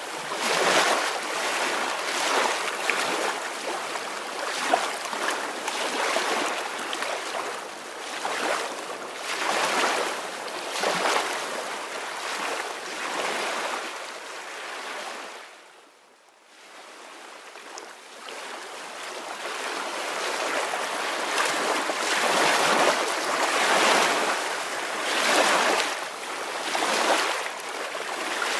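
Soft ocean waves washing in, surge after surge, each swell rising and falling every second or two. About halfway through the wash fades almost to silence, then swells back up.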